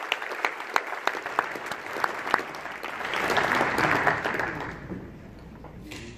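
Audience applauding, many separate hand claps over a steady patter. It swells about three seconds in, then dies away at about five seconds.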